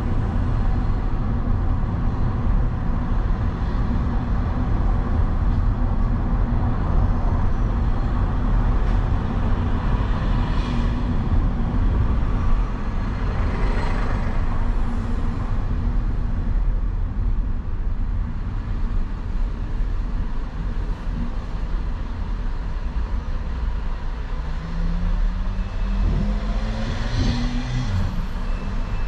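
Steady low rumble of a vehicle's engine and tyres driving through city traffic. Other vehicles pass about ten and fourteen seconds in, and near the end an engine note rises and falls.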